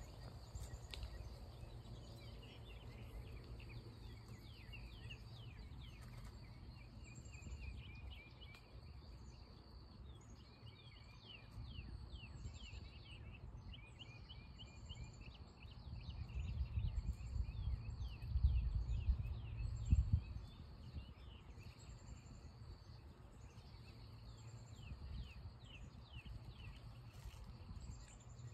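Outdoor birds and insects: many short chirps and an insect buzz that keeps stopping and starting. Underneath runs a low rumble that grows louder for a few seconds past the middle and ends in a knock.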